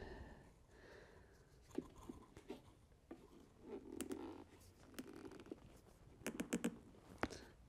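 Faint clicks, taps and rustling as parts of a diesel bunk heater are handled during disassembly, with a quick run of several clicks about six seconds in.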